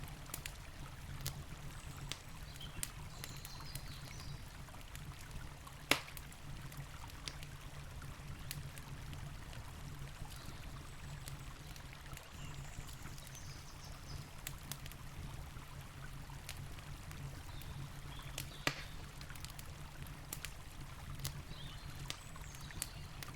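Wood campfire crackling with scattered sharp pops, two much louder ones about six seconds in and about three-quarters of the way through, over the steady rush of a river.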